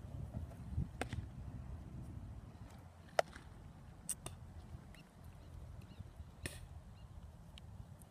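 A thrown baseball pitch popping into a catcher's mitt about a second in, followed by a few more sharp clicks and taps, the loudest about three seconds in. A low wind rumble runs under it.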